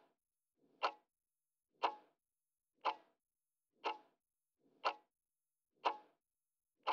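Countdown-timer sound effect: a clock ticking once a second, seven even ticks.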